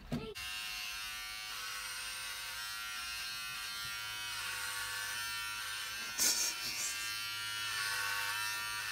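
Electric hair clippers running with a steady buzz as they cut hair. There is a short burst of hiss about six seconds in.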